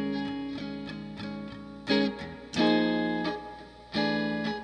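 Instrumental guitar music: chords struck and left to ring out, a new one every second or so, with no singing.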